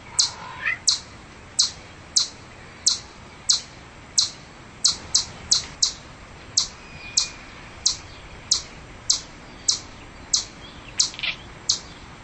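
Chipmunk giving its repeated sharp, high-pitched chip call, about one and a half chips a second at a steady pace, with a quick double chip now and then. Fainter bird calls sound in the background.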